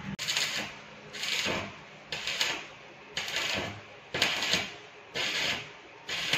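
Stick (arc) welding on square steel tubing, the arc struck and broken in short crackling bursts about once a second, as in stitch or tack welding, about six bursts in all.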